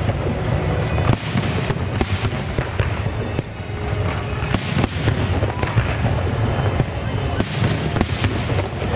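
Aerial fireworks shells bursting, a steady string of sharp bangs and crackles coming about one or two a second.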